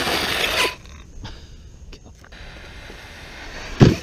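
Arrma Talion 6S RC car driving off on pavement: loud motor and tyre noise that drops away within the first second, then a quieter stretch with a few light clicks. Near the end, two short loud bursts with a falling pitch.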